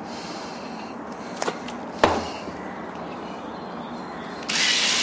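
A small handheld power drill working on a horse's hoof repair: a sharp knock about two seconds in, then the drill starts up near the end and runs with a steady high whine.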